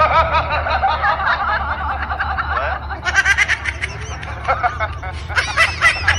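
Laughter: a long run of quick, rising-and-falling titters over a steady low hum.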